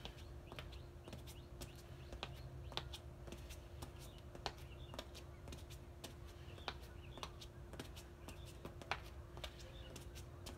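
Sneakers tapping and scuffing on a concrete patio in quick, uneven taps, roughly two or three a second, as the feet are switched in mountain climbers. A faint steady hum sits underneath.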